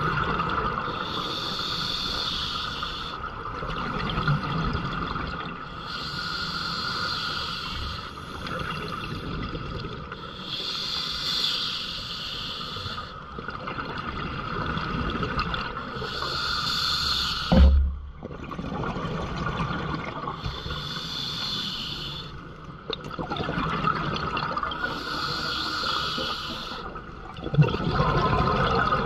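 Scuba diver breathing through a regulator underwater, a bubbling breath about every four to five seconds. About two-thirds of the way through there is a single dull knock.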